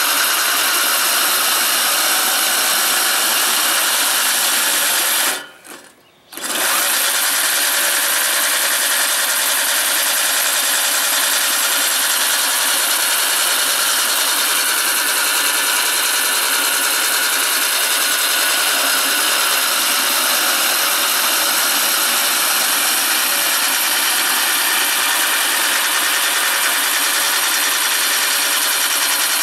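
Converted McLane reel mower's twin CIM electric motors and AndyMark gearbox spinning the reel cylinder as it cuts grass: a steady whirring whine. It cuts out for about a second some five and a half seconds in, then starts again at full speed.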